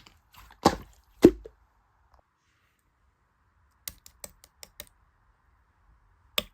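Two sharp taps about a second in, the second with a hollow plop, then after a pause a quick run of about six light clicks, and one more click near the end.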